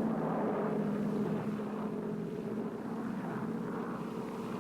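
Propeller aircraft engines running steadily in flight: a continuous drone with a low hum and a noisy wash over it. This is likely the sound of an AC-47 Spooky gunship's twin piston engines.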